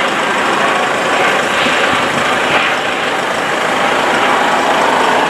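Airbus A400M's four turboprop engines running loud and steady as the aircraft climbs away.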